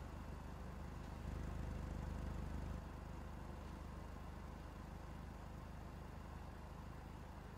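A low, steady rumble from a music video's soundtrack, a little louder for about a second and a half near the start.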